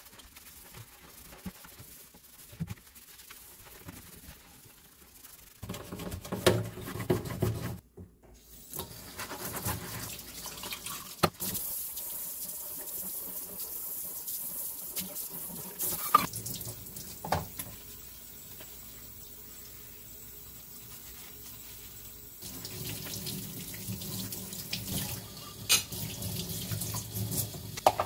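Kitchen faucet's pull-down sprayer running water into a stainless steel sink during washing, with rubber-gloved hands scrubbing the sink first. There are a few sharp knocks of things set against the sink and rack, and the water starts about a third of the way in.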